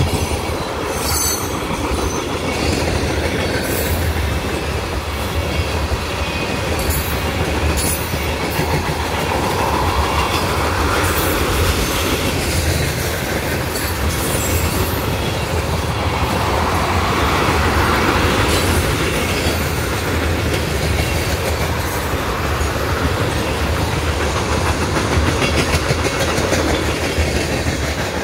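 A freight train of empty railroad tank cars rolling past: a steady rumble of steel wheels on rail, with sharp clacks as the wheels cross rail joints in the first several seconds.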